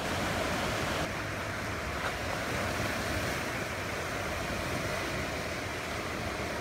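Steady rush of white water from the Lachine Rapids of the St. Lawrence River.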